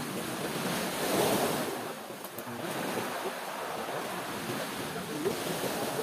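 Sea surf washing in against the shore, a steady rush with a louder surge of water a little over a second in.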